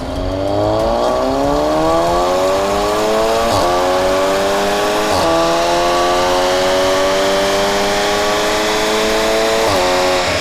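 Volkswagen Golf R's turbocharged 2.0 TSI four-cylinder, on a Milltek Sport exhaust, accelerating hard with its revs climbing steadily. Three quick DSG upshifts drop the revs, about three and a half seconds in, about five seconds in and near the end.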